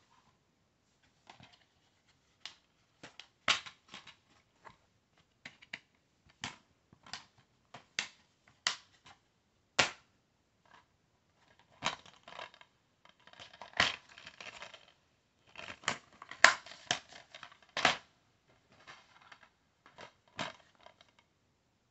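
Plastic DVD cases being handled: irregular sharp clicks and taps as they are picked up, knocked together and set down, with bursts of crinkly rustling between about twelve and eighteen seconds in.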